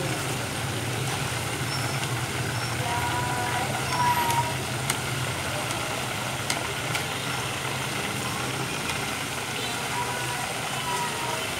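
Breaded chicken thighs deep-frying in a pot of hot oil: a steady bubbling sizzle over a low hum, with a few short clicks as wooden chopsticks turn the pieces.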